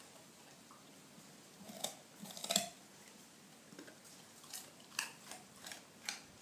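Dog crunching on a raw carrot: irregular sharp crunches, the loudest about two and a half seconds in, then a quicker run of bites in the second half.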